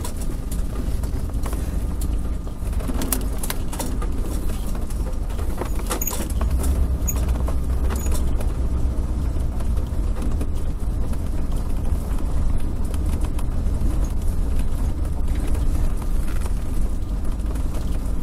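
Motorhome driving slowly over gravel, heard from inside the cab: a steady low engine and road rumble with scattered sharp clicks and rattles.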